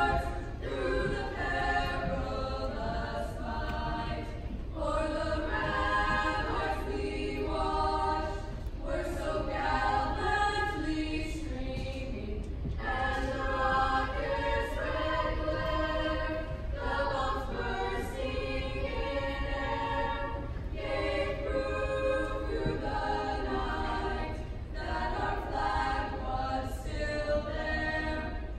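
High-school mixed choir of girls' and boys' voices singing together in long sustained phrases, with short breaks between phrases about every four seconds.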